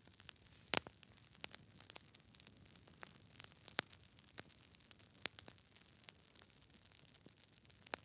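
Fire crackling faintly after its flare-up has died down: scattered, irregular sharp pops and snaps over a low hiss, a few louder snaps standing out.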